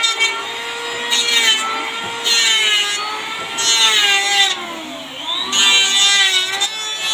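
Electric hand planer running, its motor whine sagging in pitch as the blades bite into a strip of wood, with about four passes each adding a burst of cutting hiss.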